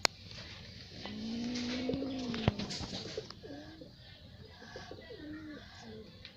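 Kitten giving a low, drawn-out angry yowl lasting almost two seconds, followed by two shorter cries. A sharp knock comes midway through the long yowl.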